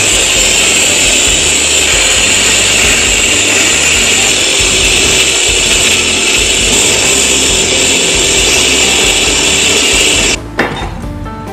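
Handheld rotary tool grinding rust off a steel bread-cutter blade, a steady high-pitched grinding that cuts off suddenly about ten seconds in.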